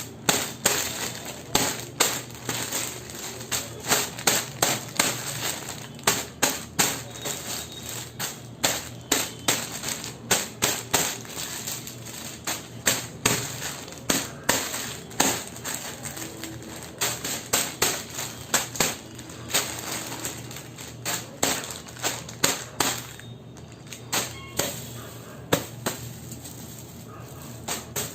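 A fast, irregular series of sharp clicks and snaps, two to four a second, keeps going throughout.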